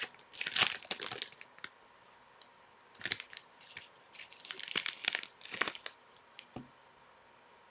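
A hockey card pack's wrapper being torn open and crinkled, in several short bursts of tearing and crinkling with quiet gaps between.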